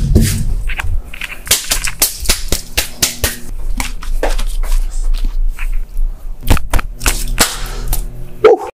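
A rapid, irregular series of sharp cracks and clicks over a low hum, a few of them much louder than the rest.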